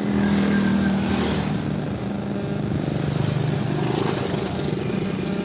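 Small motorcycle and scooter engines running close by, their hum shifting in pitch as the bikes move past and idle.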